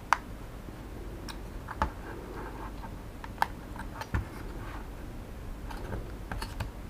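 Scattered light clicks and taps of plastic parts as the opened plastic housing of a Xiaomi Mi Drone 4K remote controller is handled and pried apart by hand, about five sharper clicks spread through.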